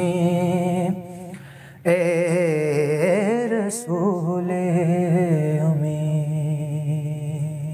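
A man singing a naat unaccompanied, drawing out long, wavering melismatic notes. The voice breaks off briefly about a second in and picks up again just before two seconds.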